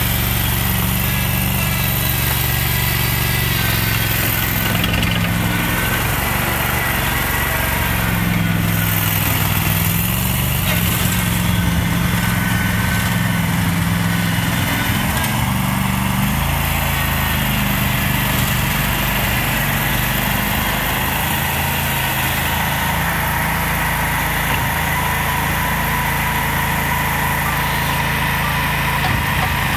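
Canycom SC75 tracked concrete buggy's small engine running steadily as the machine is driven on its rubber tracks, its note shifting a little in pitch now and then.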